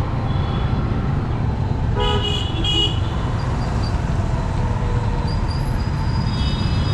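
Steady low rumble of a car driving through city traffic, with a vehicle horn honking twice in quick succession about two seconds in.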